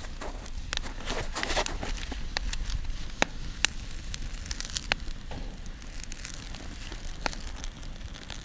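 Campfire of split firewood and sticks crackling, with a dense run of crackle about a second in and a few sharp pops scattered after it.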